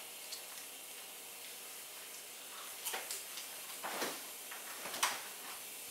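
Steady low room hiss with three faint short clicks and smacks about a second apart, made while tasting baby food off a plastic spoon.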